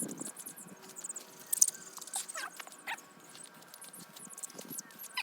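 Chickens giving a few short squeaky calls amid scratchy rustling and patter, as a hen is caught and handled.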